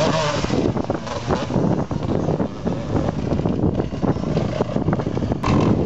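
Motocross bikes' engines running and revving on the track, half buried under heavy wind noise on the microphone.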